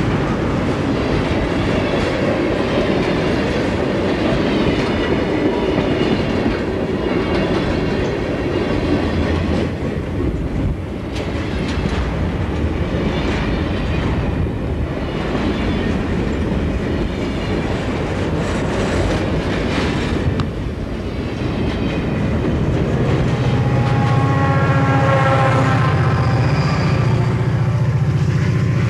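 Loaded freight cars rolling past close by, their wheels clicking over the rail joints. About two-thirds of the way through, a Santa Fe diesel helper locomotive placed mid-train comes up, its engine adding a steady low hum and a higher whine that grow louder.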